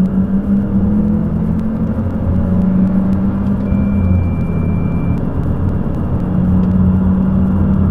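Turbocharged four-cylinder Audi TFSI petrol engine under full-throttle acceleration, a steady low drone heard from inside the cabin.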